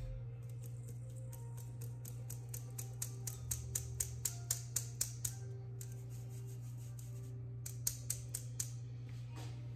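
Hand tapping the rim of a stainless steel mesh sieve to sift flour into a steel mixing bowl: a run of light taps, about four a second, then a pause and a few more taps near the end, over soft background music.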